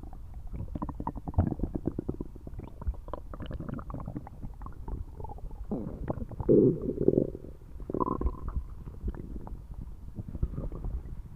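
Human stomach gurgling loudly, a run of quick bubbling pops and crackles with a louder, drawn-out growl about six and a half seconds in and a shorter one about a second later.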